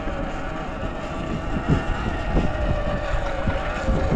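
Sur-Ron electric dirt bike riding on a dirt road: a steady motor whine over wind buffeting on the microphone and tyre rumble, with a few short low thumps.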